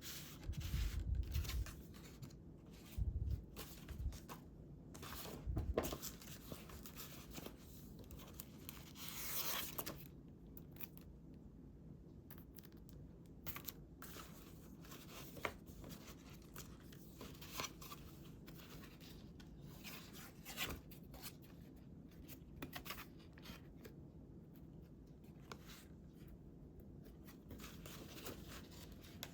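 Paper being handled and worked on a tabletop for a scrapbook: scattered rustles, taps and small clicks. There are a few dull thumps in the first six seconds and a longer papery noise about nine seconds in.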